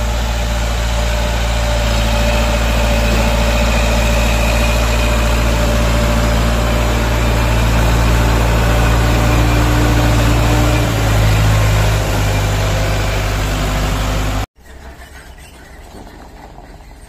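Diesel engine of an ACE mobile crane running steadily and loudly close by, its pitch shifting about eleven seconds in. Near the end the sound cuts off abruptly, leaving a much quieter engine hum.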